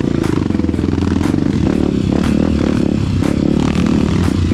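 Honda CRF trail bike's single-cylinder four-stroke engine running steadily on a rough dirt track, with frequent clattering knocks and rattles from the bike working over the ground.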